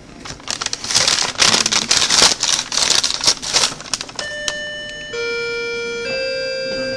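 Loud crinkling and rustling right at the microphone for about four seconds, then an electronic chime plays a short melody of sustained notes, one after another about a second apart.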